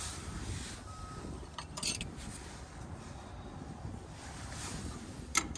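Steady rushing background noise, with a few light clicks about two seconds in and a sharp click near the end.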